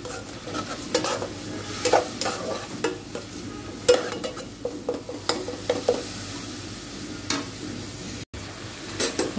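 Flat metal spatula stirring and scraping onion, ginger and garlic paste as it fries in oil in a metal pot, over a steady sizzle, with irregular scrapes against the pan. The spice paste is being cooked down until the oil separates.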